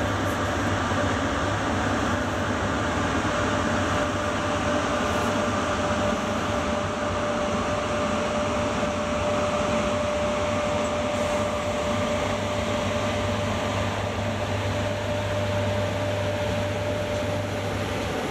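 Sr1 electric locomotive hauling a heavy paper freight train away from the station at low speed: a steady electric hum and rumble with a held whine-like tone through most of it, as the locomotive and the first wagons roll past.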